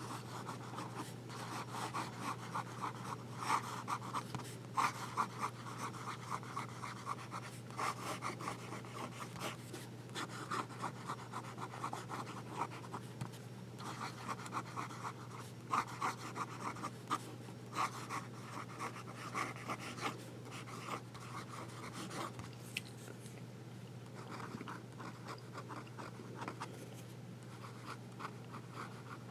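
Broad fountain pen nib scratching faintly across paper in short, irregular strokes as a writing sample is written, fewer strokes in the last few seconds. A steady low hum runs underneath.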